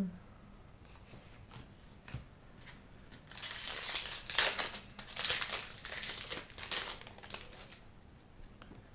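Magic: The Gathering Double Masters booster pack's foil wrapper crinkling and tearing as it is torn open, in a run of crackly bursts from about three seconds in that last about four seconds, with a few faint clicks of cards being handled before it.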